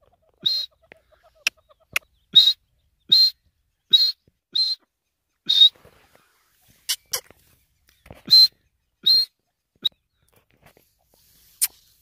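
Irani teetar (partridge) giving short, sharp, high-pitched calls, about one a second, with a pause midway. A few sharp clicks fall between the calls.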